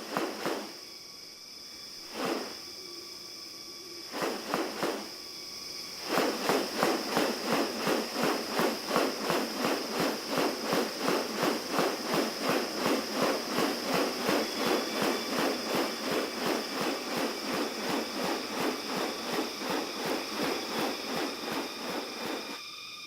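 Rainforest sounds: a steady high-pitched insect drone, with a few sharp calls in the first few seconds. Then, from about six seconds in until near the end, a louder, fast, even pulsing of about three beats a second.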